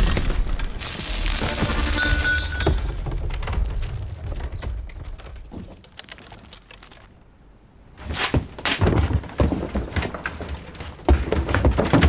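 Film sound effects of a room shaking: a loud rumble with crumbling and breaking that fades away over several seconds, followed after a quiet moment by a run of knocks and clatter.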